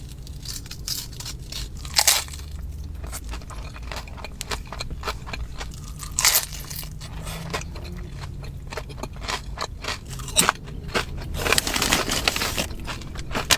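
A person biting and chewing crisp chips, with several sharp crunches spread through and a longer crackling run of chewing near the end.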